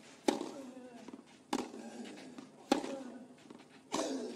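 Tennis ball struck by rackets in a baseline rally: four sharp hits about 1.2 s apart.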